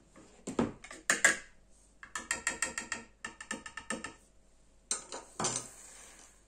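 A wire whisk clicking rapidly against the side of a plastic mixing bowl, about six strokes a second for a couple of seconds. Near the end, brown sugar is tipped from a ceramic dish into the bowl and scraped out with a spatula, making a short rustling scrape.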